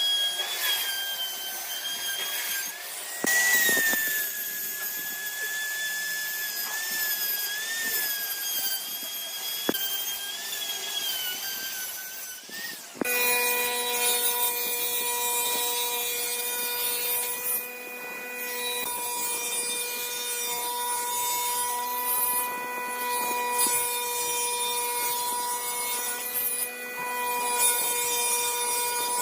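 Electric woodworking power tool running on wood. Its motor pitch wavers under changing load at first, then changes abruptly about halfway through to a steady, lower hum.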